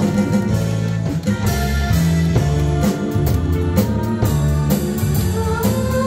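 Live band playing the instrumental opening of a song, with no voice yet: electric guitars, electric bass, drum kit and keyboard over a steady beat.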